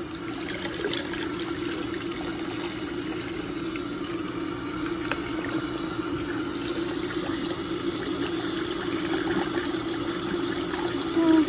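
Faucet running steadily into a water-filled sink, the stream splashing over a white-faced capuchin monkey sitting under it, with a constant low hum beneath the rush of water.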